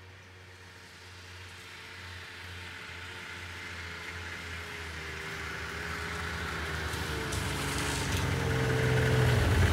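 Snowmobile engine approaching, growing steadily louder as the machine comes closer and draws up near the end.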